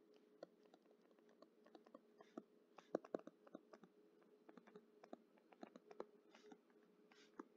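Faint, irregular clicks and light scratching of a stylus tapping and writing on a tablet screen, a few taps louder about three seconds in, over a faint steady hum.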